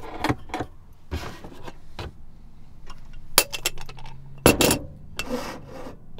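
Kitchenware handled in a small cabinet and at a sink: a cabinet door opens and a metal moka pot is taken out and handled, giving a series of sharp clinks and knocks, the loudest about three and a half and four and a half seconds in.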